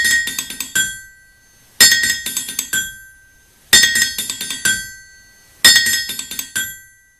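Theme music played as hammer strikes ringing on an anvil: four quick clusters of bright metallic strikes, one about every two seconds, each ringing out and fading before the next.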